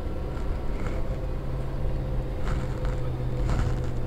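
Car driving up a steep mountain road: a steady low engine drone with a faint steady whine, broken by a few brief knocks and rattles.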